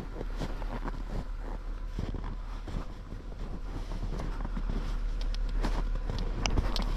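Jeep Wrangler driving through deep snow: a steady low engine rumble under irregular crunching and packing of snow, growing a little louder, with a cluster of sharp clicks near the end.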